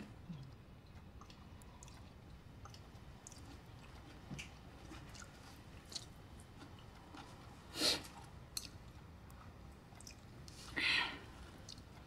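Two people eating at a table: quiet chewing, with small clicks of chopsticks against bowls. Two brief louder breathy sounds stand out, about eight and eleven seconds in.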